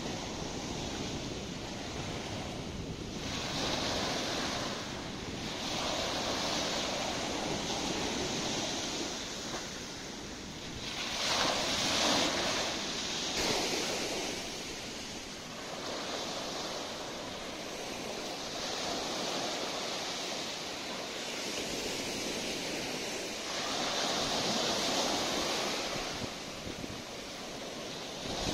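Small surf breaking on a sandy beach, waves washing up the sand in surges every few seconds, loudest about twelve seconds in.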